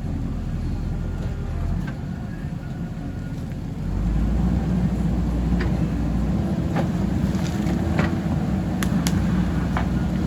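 JCB backhoe loader's diesel engine running steadily, getting louder about four seconds in as it works harder, with a few short sharp knocks in the second half.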